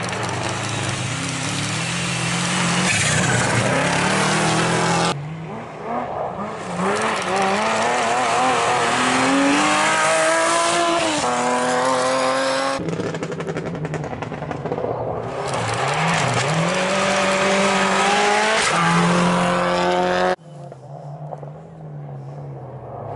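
Rally cars at speed on a special stage, one after another, engines revving hard and climbing in pitch through the gears. The sound changes abruptly about five, thirteen and twenty seconds in as one car's pass gives way to the next, and it is quieter near the end as the next car approaches.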